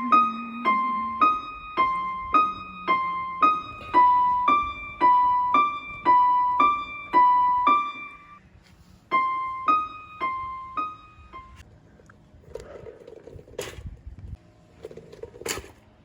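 Background piano music: a short repeating figure of high notes, about two a second, which stops about eleven seconds in. Near the end come two sharp knocks.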